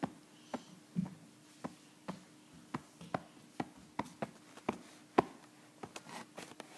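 Light, irregular tapping or knocking, about two taps a second and coming quicker near the end, over a faint steady hum.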